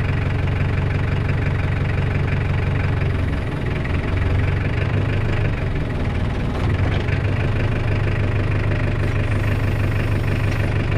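Tractor engine running steadily at idle while its hydraulics work a rebuilt planter row marker cylinder. The engine note wavers and dips briefly between about three and seven seconds in.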